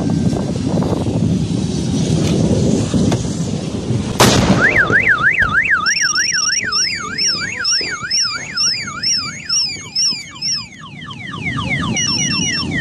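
A steady low rumble is cut by one sharp, loud bang about four seconds in: a gas cylinder exploding in the burning truck. Right after it, a car alarm starts and cycles through a fast rising-and-falling warble, chirps and repeated falling sweeps.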